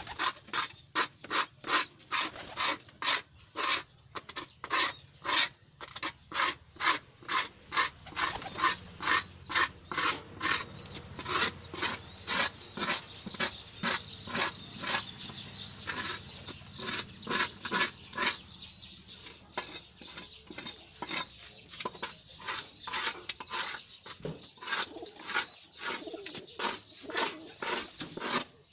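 Hand scraper rasping over a pigeon-loft floor, scraping up dried droppings in quick, repeated strokes, about three a second, less regular in the second half.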